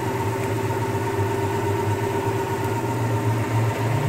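Toyota Tarago van's four-cylinder petrol engine idling steadily, hot at about 100 °C with head-gasket sealer in its cooling system. Near the end a second low hum joins and the sound gets slightly louder as the radiator fan relays are plugged back in.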